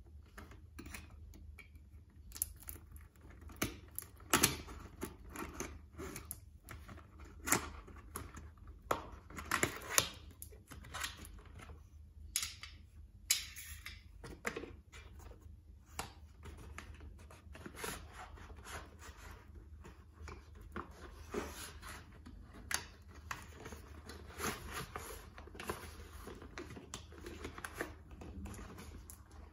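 Cardboard box being opened and unpacked by hand: irregular clicks, taps and scrapes of cardboard flaps and a plastic power strip, with a couple of longer scraping or tearing sounds in the middle.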